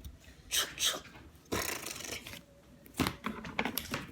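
Cardboard scraping and rustling as it is handled, in three short bursts about a second apart.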